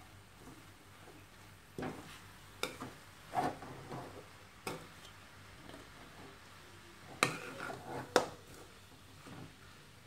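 Spatula stirring and scraping a dry brinjal stir-fry in a metal kadai, with irregular knocks of the spatula against the pan. The loudest two knocks come about seven and eight seconds in.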